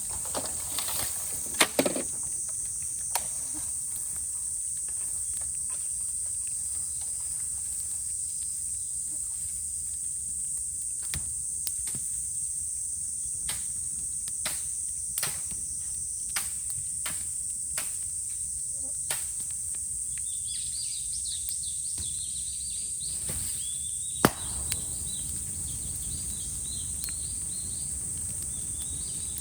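Cicadas droning in a steady high chorus over the scattered crackle of a burning bamboo fire, with two loud cracks, one near the start and one about three-quarters of the way through. About two-thirds of the way in, rapid high chirping calls join in.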